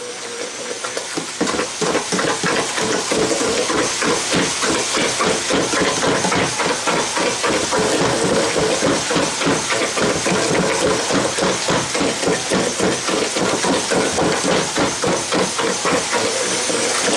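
Electric stick (immersion) blender mashing potatoes in a pot. The motor hums steadily with rapid, uneven knocking and churning as the blade works through the thick mash.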